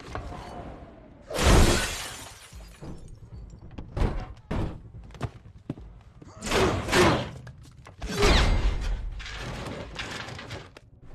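Film sound effects of a car being smashed: a string of heavy crashes with glass shattering and metal being hit. The loudest come about a second and a half in and about eight seconds in.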